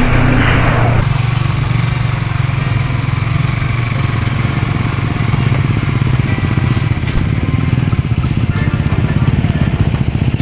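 Motorcycle engine running at a steady cruise, heard from the rider's seat, with road and wind noise. A louder rush, fitting an oncoming truck going by, fades within the first second.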